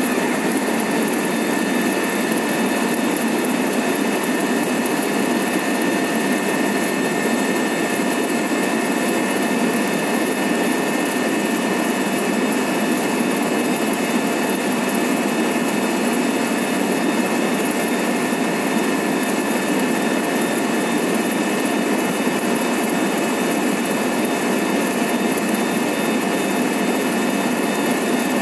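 Helicopter cabin noise in steady cruise flight: a constant rush with a few steady high-pitched whines on top, unchanging throughout.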